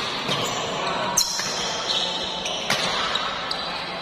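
Badminton doubles rally: a few sharp racket strikes on the shuttlecock, with short high squeaks of shoes on the court floor, echoing in a large hall.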